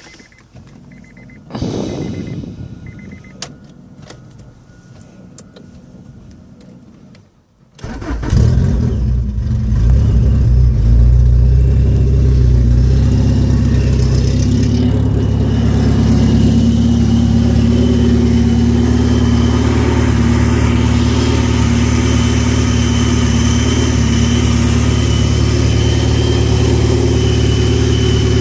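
Supercharged engine with a PLM Tri-Y header run open, with no pipe after it. After some quieter noises it starts about eight seconds in and settles into a loud, steady idle. A thin, steady high whine from the supercharger joins in partway through.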